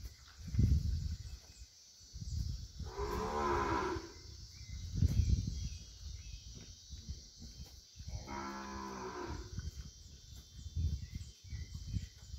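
Cattle mooing: two short moos with a strong low pitch, the first about three seconds in and the second about eight seconds in. Low rumbling sounds come and go between them.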